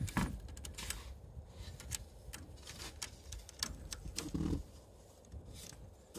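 Soft crunching and crackling of snow as cats step and shuffle through a snow trench, in irregular small clicks, with a short low vocal sound about four seconds in.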